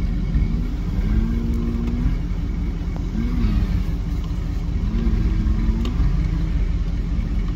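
Off-road vehicle engine running under a steady low rumble, its pitch rising and falling a few times with the throttle.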